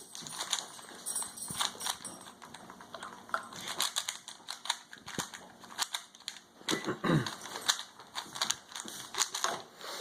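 Plastic speed cube being turned quickly by hand, its layers clicking and clacking in fast, irregular runs. The solver says the cube sticks and is hard to move.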